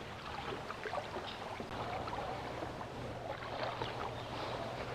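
Water lapping and trickling against a kayak hull, with a few small clicks and knocks; a faint low hum comes in about two seconds in.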